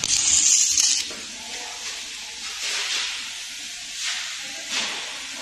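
Drawn-arc stud welding gun firing a steel shear stud onto a steel plate: a loud arc hiss lasting about a second at the start. Several fainter, shorter hisses follow.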